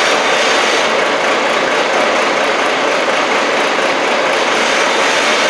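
Case 1845C skid loader's diesel engine running steadily at a constant speed, loud and even.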